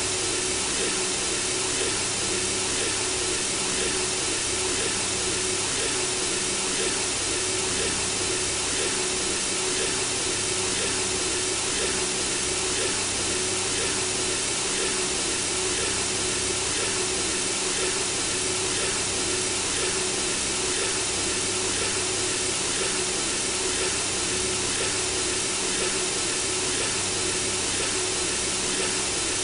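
Synthesizer-generated white noise for lulling a baby to sleep: a continuous, even hiss with a faint steady tone underneath.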